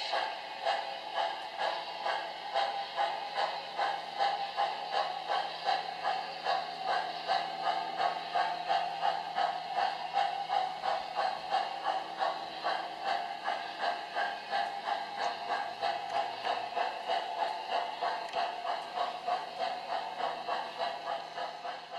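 O-scale model steam train running past, with a steady chugging beat of about two to three a second over a steady hum.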